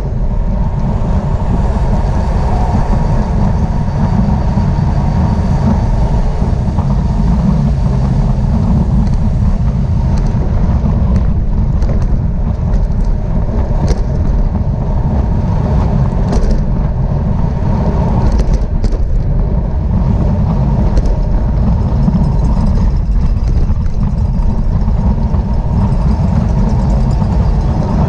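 Wind rumbling steadily across the microphone of a camera on a moving racing bicycle, with a few faint clicks in the middle.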